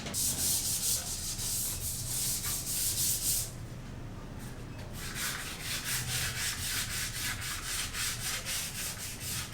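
Rapid back-and-forth scraping strokes against a hard surface, several a second, in two runs separated by a pause of about a second and a half.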